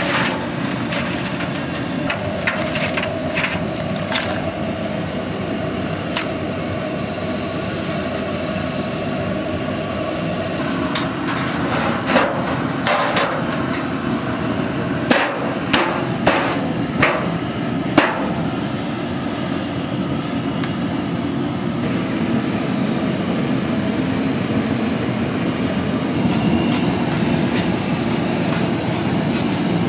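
Sharp metallic knocks and clatters on a large steel drum holding live crabs as its conical steel lid is put on and settled, over a steady rushing noise. The knocks come in a few scattered groups, most of them in the middle of the stretch.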